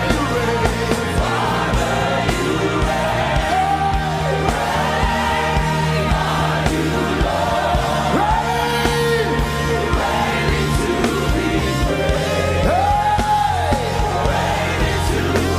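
Live gospel worship music: a band plays sustained chords over a steady bass while a lead singer holds long notes that slide up and down between phrases.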